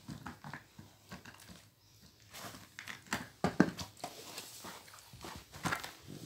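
A pit bull gnawing a rubber chew toy and a miniature pinscher tugging it away from her: irregular clicks, knocks and rustling of bedding, loudest in a scuffle about three and a half seconds in.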